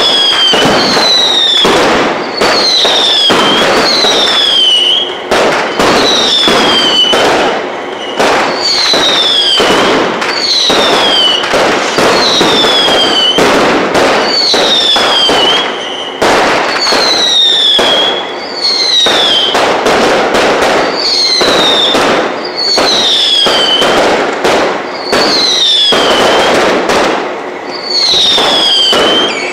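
Fireworks display going off continuously: a quick succession of whistling fireworks, each a short whistle falling in pitch, over steady crackling and bangs.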